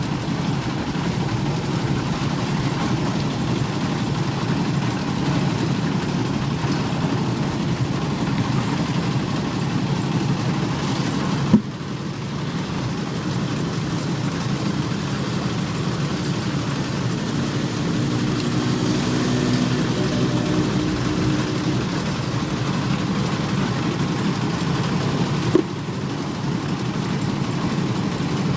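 Old diesel engine of a concrete mixer running steadily, with two brief sharp clicks, one near the middle and one near the end.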